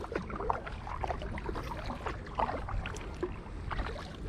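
Kayak paddle strokes in calm river water: small scattered splashes and drips over a low steady rumble.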